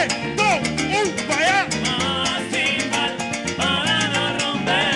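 Live Latin dance band playing: busy percussion under a melody line that swoops up and down in short arched phrases.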